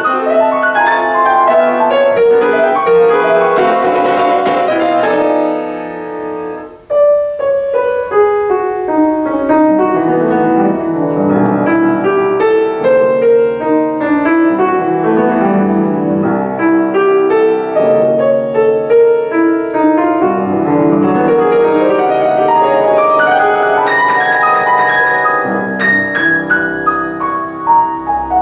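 Yamaha grand piano playing a classical piece, the sound dying away about six seconds in before a loud new chord opens the next phrase.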